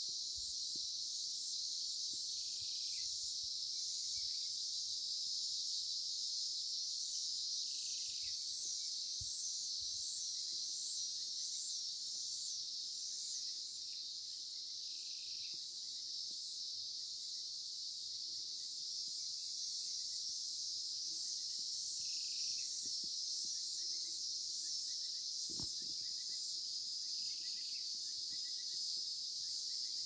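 Dense, steady, high-pitched chorus of insects with a fine pulsing texture. A short falling call repeats about every five seconds over it, and a single soft low thump comes near the end.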